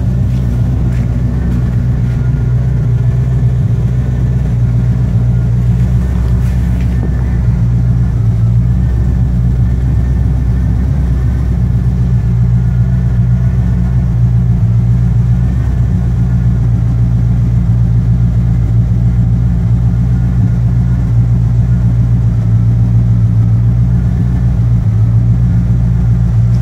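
1986 Corvette's 5.7-litre V8 idling steadily through a Borla cat-back stinger exhaust, a deep, even exhaust note.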